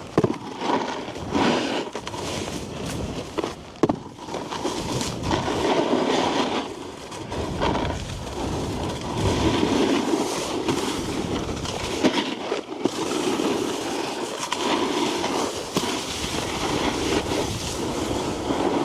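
Snowboard sliding and carving over packed snow, its edges scraping in long swells as the rider turns, with a couple of sharp knocks, one near the start and one about four seconds in.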